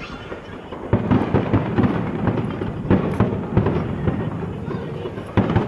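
Aerial fireworks bursting in quick succession: a dense run of bangs and crackles, growing louder about a second in, with a few sharper single bangs standing out.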